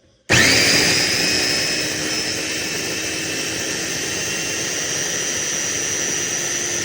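Homeleader 300W electric food chopper's motor switching on about a third of a second in with a rising whine and then running steadily, its blades spinning through dry breadcrumbs and oatmeal in the glass bowl.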